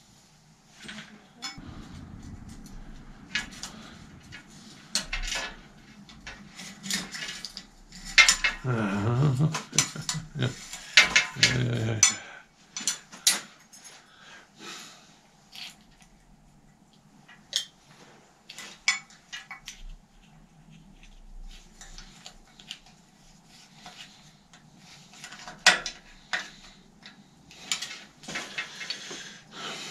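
Scattered metallic clinks, taps and knocks of tools and a chrome handlebar being worked into a bicycle's stem. A loud, low, wavering drawn-out sound cuts in for a few seconds about eight seconds in.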